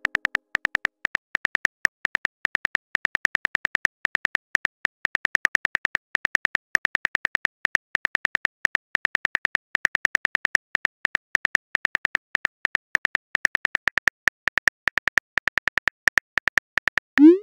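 Simulated phone-keyboard typing clicks: a rapid, uneven stream of short taps as a text message is typed out. Just before the end comes a brief rising swoosh, the message-send sound.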